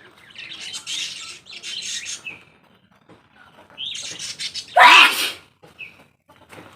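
A person sneezing once, loudly, about five seconds in, after a short breathy build-up; two softer breathy bursts come earlier. The sneezes are set off by coconut coir fibre tickling the nose.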